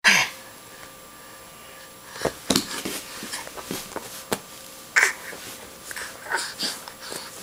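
A baby breathing hard and making short wheezy grunts as it crawls. From about two seconds in there are scattered sharp taps and knocks, and there is one sharp click at the very start.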